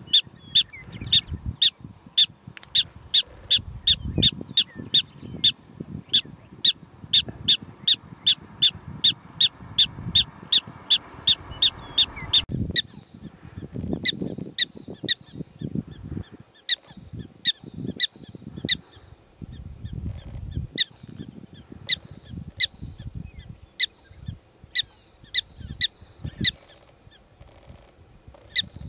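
Black-tailed prairie dogs calling: a fast, steady run of short, high-pitched barks, about three a second, stops about twelve seconds in. Sparser, fainter barks follow.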